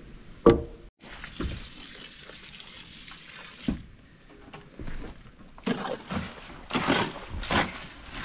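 A sharp knock as a post is tapped over to plumb, then a mortar hoe scraping and slopping through wet concrete in a wheelbarrow, in strokes about one to two a second over the last few seconds.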